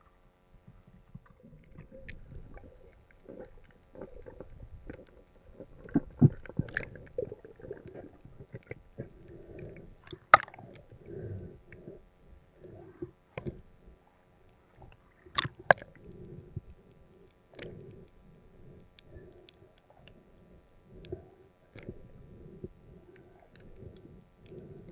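Muffled underwater sound picked up by an action camera in its waterproof housing: irregular dull swishes and rumbles as the diver moves through the water, with a few sharp knocks, the loudest about six, ten and fifteen seconds in.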